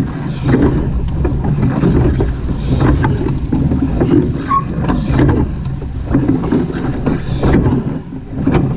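Surf boat being rowed on open water: wind buffeting the microphone, with irregular splashes and knocks of the oars in the water.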